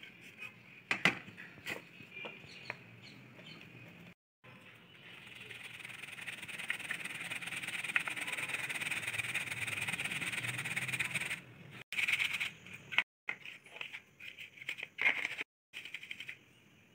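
Rice flour being sieved through a fine plastic-mesh sieve over a steel bowl. A few light taps come first, then a steady, scratchy rustle for several seconds as the flour is worked through the mesh, then more short taps and rustles.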